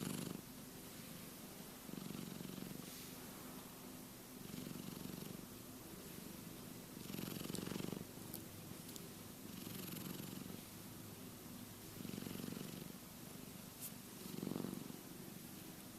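A sleeping cat's rumbling, snore-like breathing, swelling louder with each breath about every two and a half seconds.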